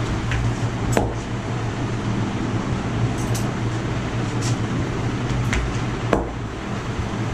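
Sharp snaps from the barber's hands working during a head massage: two strong ones, about a second in and near the end, with a few lighter ticks between. A steady low hum lies underneath.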